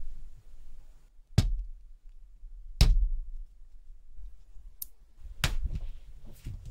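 Several sharp taps and clicks of small hard objects knocking on a hard surface, a second or two apart, over a low rumble.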